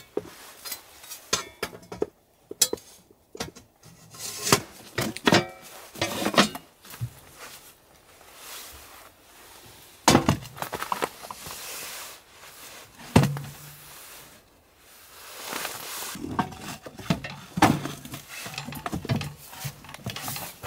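Sheet-steel panels of a small wood stove and its stand clanking and knocking as they are fitted together and the stove is set on the stand, in irregular metallic clinks and thuds, a few ringing briefly.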